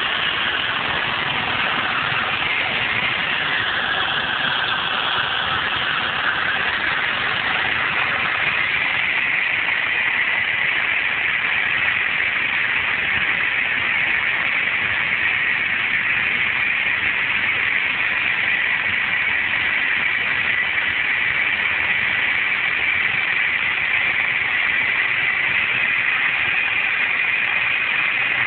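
Steady drone of a Grob light aircraft's engine and propeller heard inside the cockpit on approach to land.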